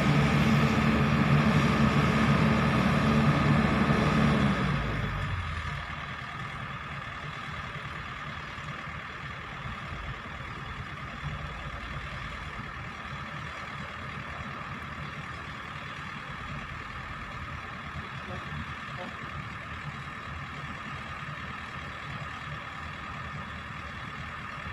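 Excavator diesel engine running hard for about four seconds, then dropping to a steady, quieter idle with a steady high whine over it.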